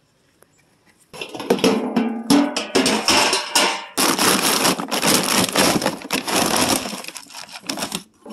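A plastic scoop digging into a sack of dry feed pellets, a dense rattling crunch of pellets that starts about a second in, over background music.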